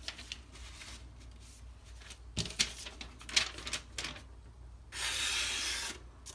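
A few small handling clicks and scrapes, then about five seconds in a knife blade slices through a sheet of paper in one steady hiss lasting just over a second. This is a sharpness test of the freshly stropped edge.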